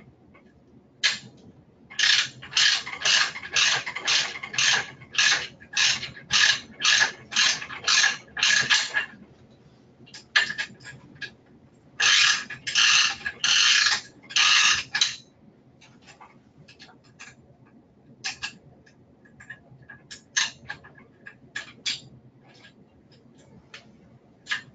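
A 7/16 ratchet and socket clicking in quick back-and-forth strokes while it undoes the bolts that hold a wheelchair's rear caster. There is a long run of strokes at about two a second, a short pause, a shorter run near the middle, then scattered lighter clicks.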